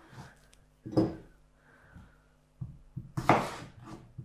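Kitchen knife cutting through raw potato and knocking on a wooden cutting board: one cut about a second in, then a quicker run of cuts near the end, the loudest about three seconds in.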